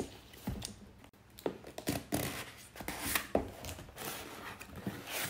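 Pink cardboard mailer box being opened by hand: irregular scrapes, taps and rustling as the lid and flaps are worked open.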